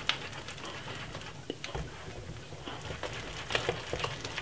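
Wire whisk stirring thick cornmeal porridge in a saucepan: a soft wet patter with scattered light ticks.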